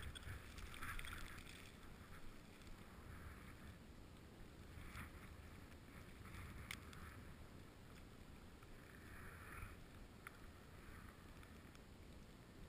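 Skis scraping and swishing over groomed snow in a series of turns, a surge every couple of seconds, over a low rumble of wind on the microphone; faint overall.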